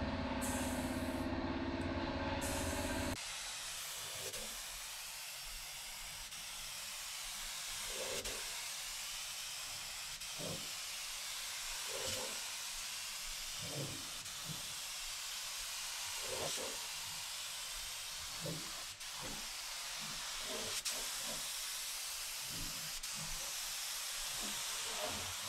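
Compressed-air spray gun hissing steadily as it sprays primer onto a truck body. It follows a steady hum with several pitched tones, which cuts off about three seconds in.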